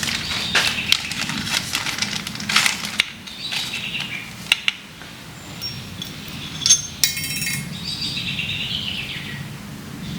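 Metal parts of a Kurt milling machine vise clinking and clicking as they are handled and fitted during reassembly, with a short quick rattle about seven seconds in.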